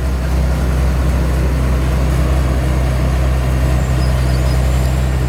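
Chao Chang WiFi 2024 combine harvester running steadily, its diesel engine humming low and even with the harvesting machinery's noise over it.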